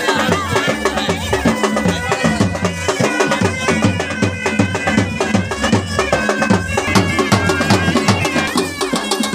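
Lively folk music: drums keep a steady beat under a melody line.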